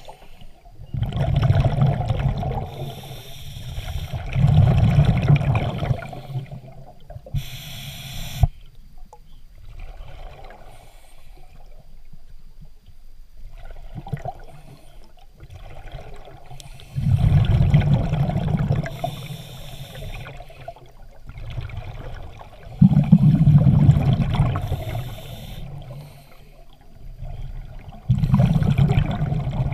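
Scuba regulator exhaust bubbles from a diver breathing underwater: a rumbling, gurgling burst of bubbles lasting a couple of seconds every five or six seconds, with quieter water sound between breaths.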